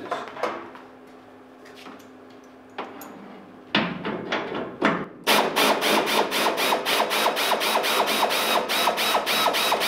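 Pneumatic ratchet on an air hose loosening a hood hinge bolt on a 1971 Chevy C10. There are a couple of short trigger bursts about four seconds in, then the ratchet runs steadily with an even clicking, about four clicks a second.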